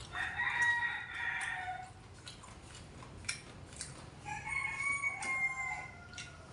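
A rooster crowing twice, each crow lasting a second or two, the second about four seconds after the first. Light clicks of chopsticks and a spoon against bowls come in between.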